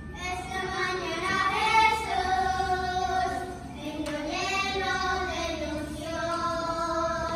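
A small group of children singing a First Holy Communion song together in long held notes, with a short break between phrases about halfway through.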